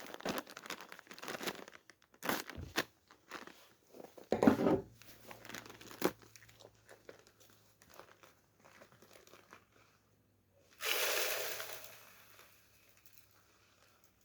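A plastic bag of birdseed crinkling and being torn open, with handling knocks, then about eleven seconds in a brief rush of seed pouring into the feeder's hopper that tails off.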